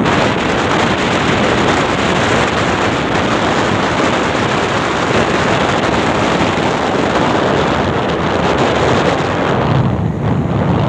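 Loud, steady wind noise on a phone microphone carried on a moving vehicle. About a second before the end it turns duller as the hiss thins out.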